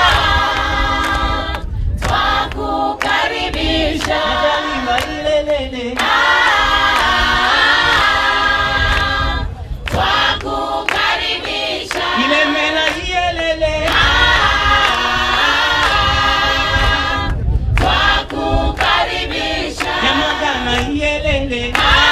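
A mixed choir of women and men singing together, with hand claps keeping time and short breaks between phrases.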